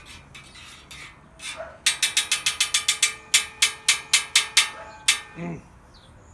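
A quick run of sharp clicks with a short metallic ring, about eight a second, then slower clicks about three a second, stopping about five seconds in.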